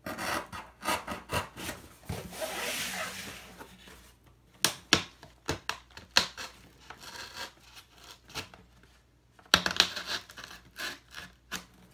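Craft knife (X-Acto) cutting slits through a cardboard shipping box, going through two layers of cardboard at the box's join: scraping, rasping strokes with sharp clicks and taps.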